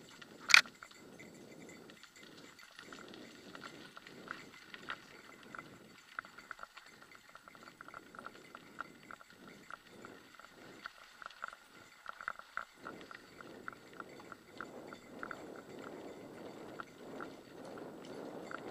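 Bicycle riding over a bumpy dirt trail: tyre rumble with irregular rattling clicks and ticks from the bike, and one sharp clack about half a second in.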